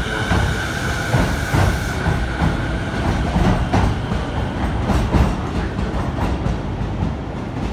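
Chuo Line rapid train, an E233 series electric multiple unit, pulling out along the platform, its wheels clacking over rail joints in an even repeating rhythm over a steady rumble. A steady high whine stops about two seconds in.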